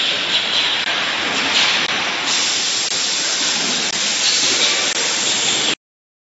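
Steady hissing mechanical noise of an automatic carton case-packing machine on an edible oil filling line. It cuts off suddenly near the end.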